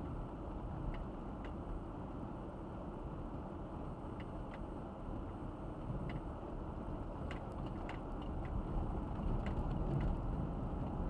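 A car driving slowly on a rough dirt track, heard from inside the cabin: a steady low rumble of tyres and engine with scattered light clicks and rattles, getting a little louder near the end as it picks up speed.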